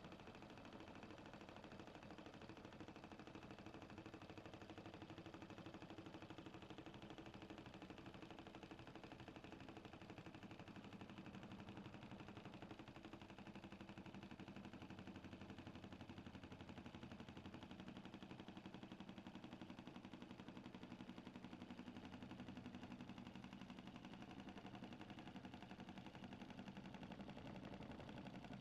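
Small homemade airbrush compressor running steadily, a faint hum with a fast, even pulsing.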